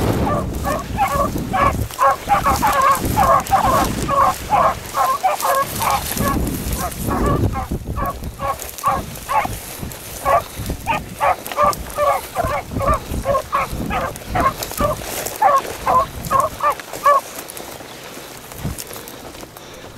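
Beagles baying while trailing a rabbit: a fast run of short, pitched hound calls, several a second, overlapping at times, that thins out and stops about three seconds before the end.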